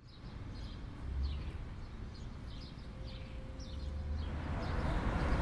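Outdoor ambience: small birds chirping in short, scattered calls over a steady low rumble, with the whole growing louder toward the end.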